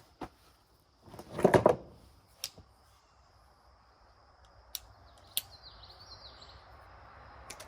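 A short, loud rustle or scrape about one and a half seconds in, then a few light clicks, with a bird chirping faintly about six seconds in.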